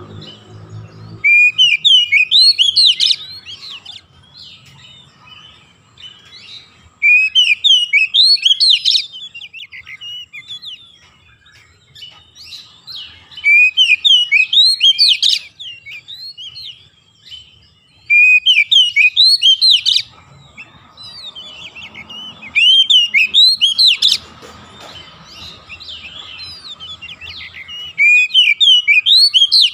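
Oriental magpie-robin (kacer) singing: about six bursts of rapid, varied whistled notes, each about two seconds long, coming every five or six seconds.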